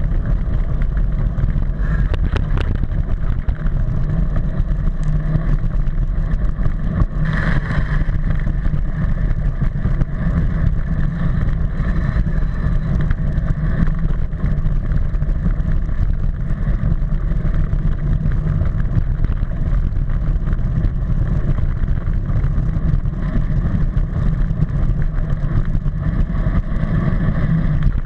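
Continuous rumble and rattle of a Giant VT3 mountain bike riding a rough dirt track, picked up through the front fork by a GoPro Hero3: tyre and trail noise with wind on the microphone. A brief louder, brighter noise comes about seven seconds in.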